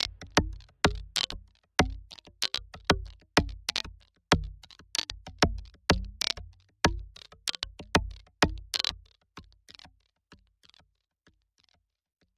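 Hip-hop backing track with a drum beat of kick and snare hits, about two a second, fading out and stopping shortly before the end.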